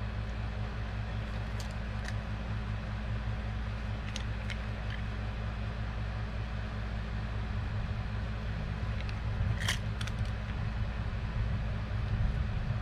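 Steady low machine hum filling the room, with a few faint, sharp clicks and taps of small objects being handled, the clearest one about ten seconds in.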